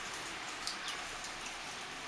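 Steady rain falling, an even hiss with scattered sharp ticks of drops striking a nearby surface.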